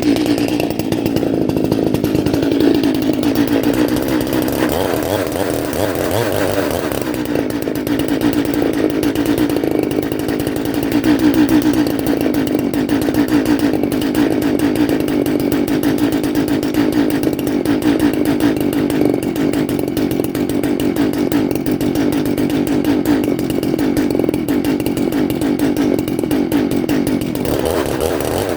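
Gas chainsaw running at steady high throttle, bucking a large red oak log. The pitch holds nearly constant under load, swelling slightly about a third of the way through.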